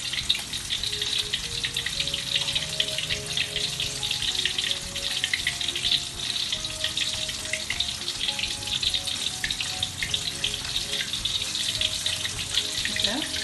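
Hot oil sizzling and crackling steadily as coated chicken strips deep-fry. A soft melody of single held notes plays underneath.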